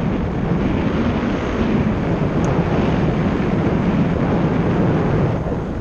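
Wind buffeting the microphone of a camera on a moving bicycle: a loud, steady rushing rumble.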